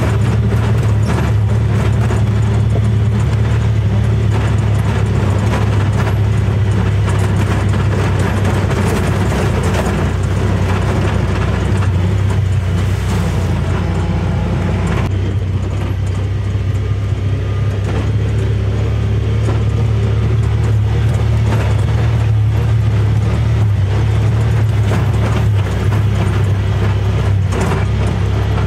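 Honda Pioneer 1000-5 side-by-side's parallel-twin engine running steadily under way on a rough gravel trail, heard from inside the cab, with frequent clicks and rattles from the body and the stones.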